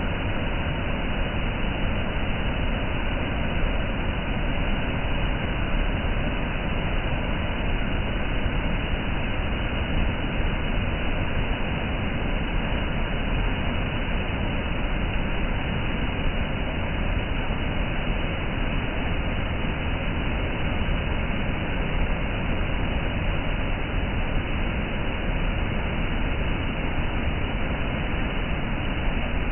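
Waterfall: falling water making a steady, unbroken rush with no change in level.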